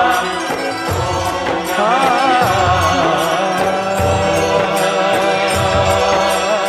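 Instrumental passage of a Hindi devotional bhajan to Shiva: a sustained melody line with vibrato over a steady drum beat.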